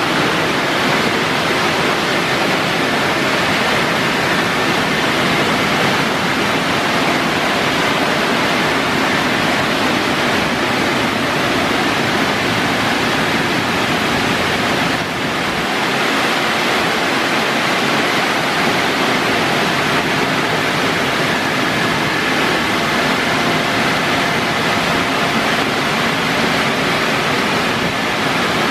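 Ceccato Aquarama Stargate S7 rollover car wash's dryer blowers running, a loud steady rush of air with a faint whine over it, as the gantry travels along the car. The rush dips briefly about halfway through.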